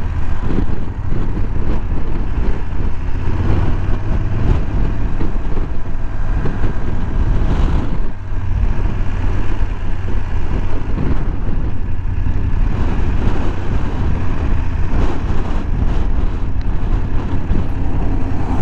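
BMW F850GS parallel-twin motorcycle engine running steadily while riding, with a heavy, rough rumble of wind and road noise over the bike-mounted microphone.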